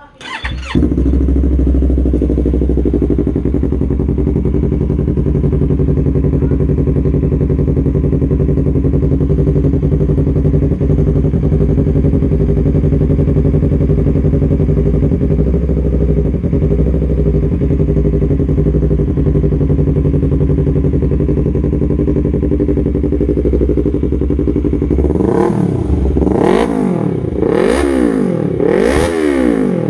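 Yamaha R3's parallel-twin engine started, catching within about a second, then idling steadily. From about 25 seconds in it is revved in a series of quick throttle blips, the pitch rising and falling each time.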